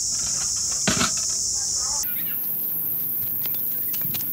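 A steady high-pitched drone of insects, which cuts off abruptly about two seconds in to a fainter, higher hiss with light footsteps on a dirt path.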